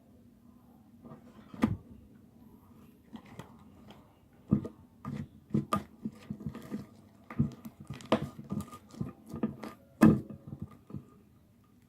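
Slime being squished and pressed by hand, making irregular sticky clicks and pops. They are sparse at first and come thick and fast from about four seconds in, with the loudest pop near the end.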